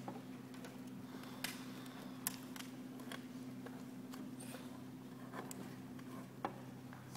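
Scattered faint clicks and rustles of a sheet of paper being held and moved in the hand, over a steady low hum of room tone.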